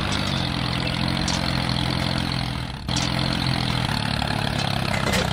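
Mini tractor engine running steadily, with a brief break about three seconds in before it carries on.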